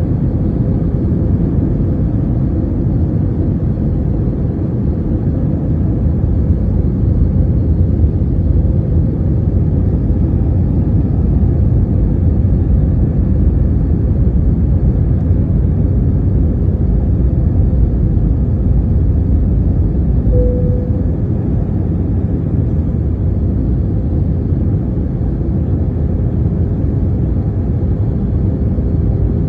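Airliner cabin noise on the approach to landing: a steady low rumble of engines and airflow with a constant hum, and one short tone about twenty seconds in.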